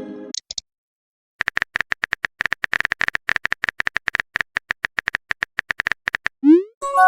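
Phone-keyboard typing clicks, several a second, in a steady run for about five seconds, then a short rising swoosh and a chime of several steady tones near the end, like a message-sent sound effect.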